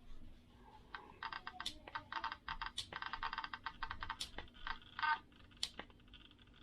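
Light clicks and taps in quick runs, several a second, with a few sharper single clicks between them: small hard parts being handled and worked, with the new kill switch being checked.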